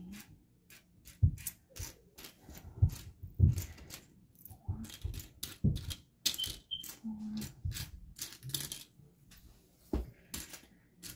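Loose small plastic building bricks clicking and clattering against each other and the mat as a hand rummages and sifts through a pile of them to find pieces. The clicks are irregular and frequent, with a few louder knocks.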